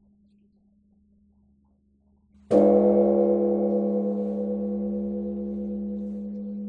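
A temple gong or bell is struck once about two and a half seconds in and rings on with a deep, slightly wavering tone that slowly fades.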